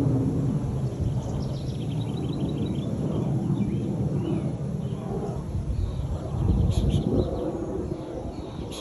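Low, continuous rumbling from the sky, the unexplained 'strange sound' being recorded. Small birds chirp in short trills over it, about a second and a half in and again near the end.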